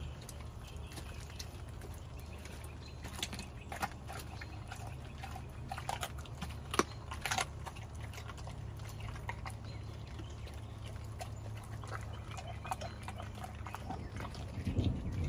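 Pit bull chewing a whole raw chicken: wet smacking and tearing with scattered bone crunches, sharpest around the middle, over a steady low hum.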